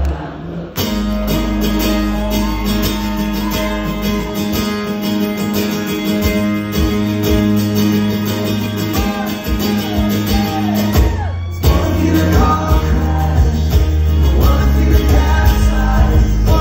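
Acoustic guitar strummed live with a man singing over it.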